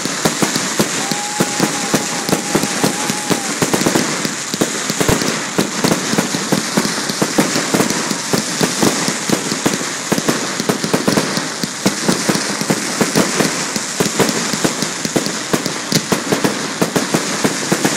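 Fireworks crackling stars bursting overhead: a dense, continuous crackle of many small rapid pops, like heavy rain. A steady tone sounds for a couple of seconds about a second in.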